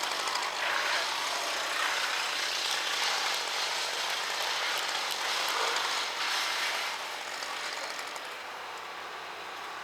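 Chainsaw running and cutting wood, easing off about seven seconds in.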